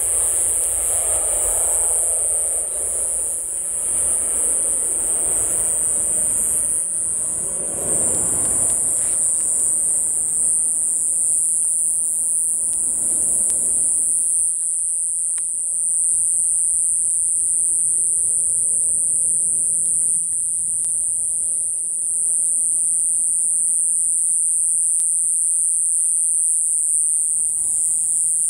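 A jet airliner climbing away after take-off, its engine rumble fading out over the first half. A steady, high-pitched insect chorus goes on throughout and is the loudest sound.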